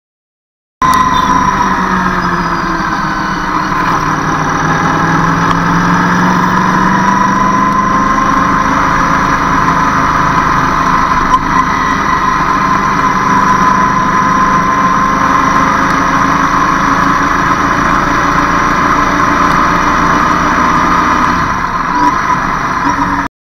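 Road traffic on a congested road: vehicle engines running steadily, with a pitched engine tone that slowly rises and falls. It starts abruptly about a second in and cuts off just before the end.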